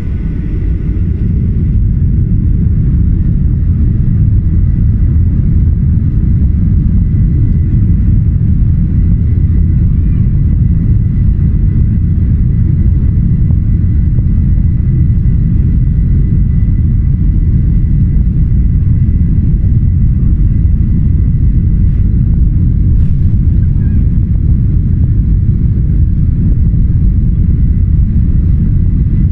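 Boeing 737-800's CFM56-7B turbofan engines at takeoff thrust heard inside the cabin over the wing: a loud, deep, steady rumble with a thin high whine above it, building over the first couple of seconds as the aircraft accelerates down the runway.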